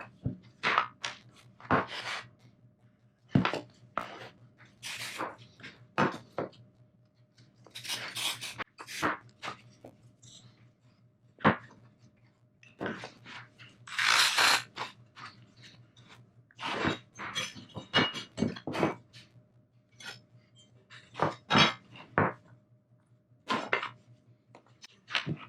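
Intermittent clinks, knocks and rustles of hard parts and tools being handled on a workbench, with a faint steady hum underneath.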